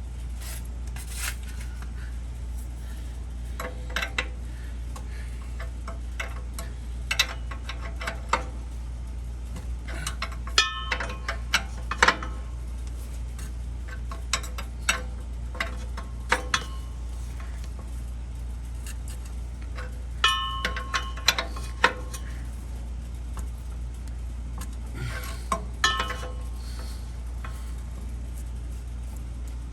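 Metal hand tools clicking and clinking in scattered bunches, some with a short metallic ring, as a new oxygen sensor is tightened into the exhaust. A steady low hum runs underneath.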